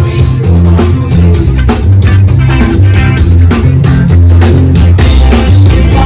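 Loud band music with a heavy bass line, guitar and a steady drum beat.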